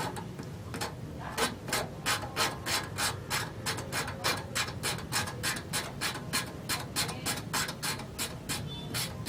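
Ratchet wrench clicking steadily as it is worked back and forth, about three to four sharp clicks a second, starting about a second in.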